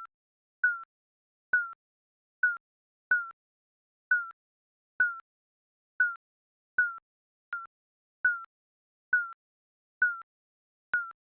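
Short electronic timer beeps, one high blip at a time that dips slightly in pitch, repeating about once a second at uneven spacing.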